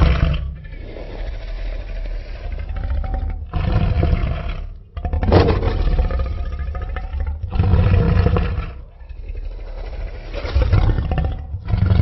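Designed sound-effect roars of a Carcharodontosaurus, a giant theropod dinosaur: a string of deep roars one after another, with lower rumbling growls between them. The loudest roar comes about five seconds in.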